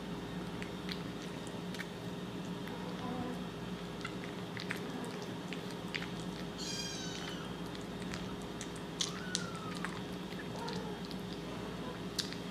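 Kitten eating wet food from a bowl, with scattered small wet clicks of its eating over a steady low hum. About six and a half seconds in it gives one short high mew, and a fainter, falling one near nine seconds.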